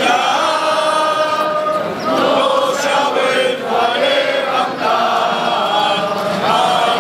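A large crowd singing together in unison, in long held phrases.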